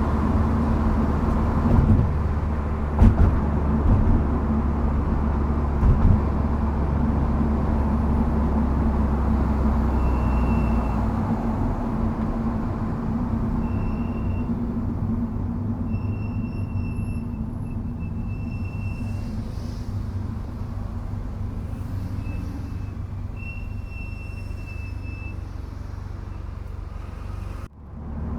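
A car driving, with engine and road noise, and a high-pitched brake squeal that comes and goes several times from about ten seconds in. The squeal is from Brembo calipers fitted with Endless MX72 pads without anti-noise shims, and it happens under light braking.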